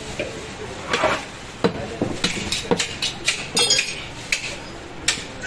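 Butcher's blade striking meat and a chopping block in sharp, irregular knocks mixed with metal clinks, about ten strikes in all, one ringing a little past halfway.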